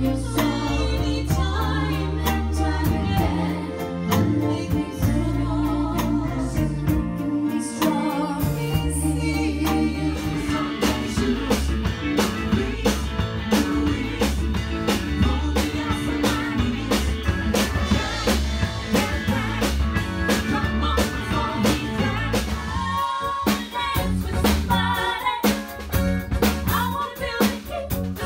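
Live band playing a medley of 1980s pop songs: a woman and a man singing into microphones over electric bass, guitar and a drum kit with a steady beat, moving into another song near the end.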